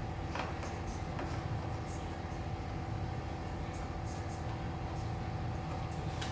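A steady low hum with a few faint clicks and taps of an electrical cord being handled against a wooden cabinet.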